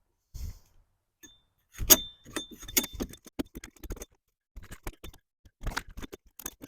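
A metal hand tool clicking, tapping and clinking in irregular strokes against a wooden window frame and its glass while rotted wood is dug out. The loudest strike comes about two seconds in and leaves a brief metallic ring.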